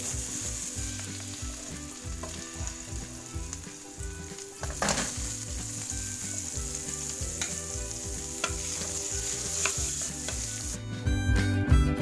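Butter sizzling and melting in a hot pan, a steady frying hiss with a few sharp ticks. Music with a beat comes in near the end.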